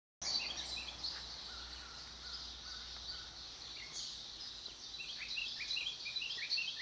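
Morning chorus of songbirds, many short chirps and calls overlapping, with a quick run of repeated rising chirps near the end.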